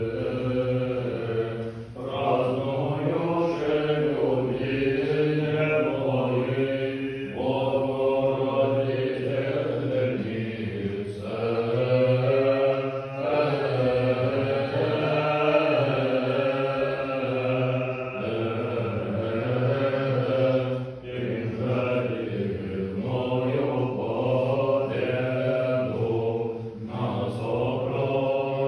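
Man singing a kontakion in Russian Orthodox znamenny chant, unaccompanied, in phrases with short breaths between them, over a steady low held note.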